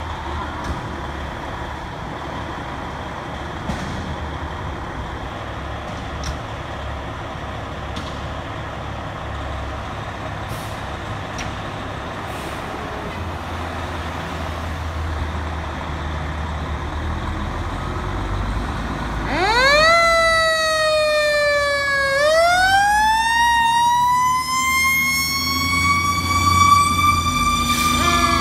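Fire trucks' diesel engines running at idle with a steady low rumble. About two-thirds of the way through, a fire apparatus siren starts, rising in pitch, dipping, then winding up slowly into a long high wail as the trucks leave on an emergency response. A fresh rising sweep begins near the end.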